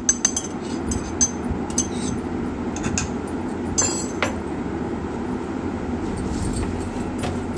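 A spoon clinking and scraping against a pan a few times as crushed whole spices are tipped into water, over a steady low hum.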